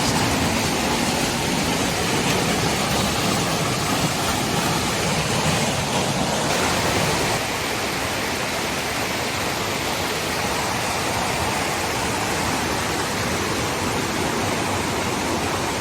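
A waterfall's water rushing steadily and loudly, heard close to the falls, with its tone shifting a little about halfway through.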